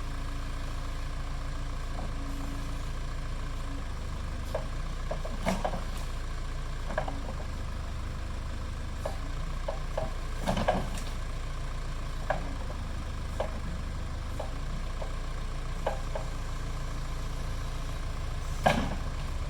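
Case 580E backhoe engine running steadily, with small shifts in pitch as the operator works the hydraulics. Sharp knocks and cracks about eight times, the loudest near the end, as the machine works the tree.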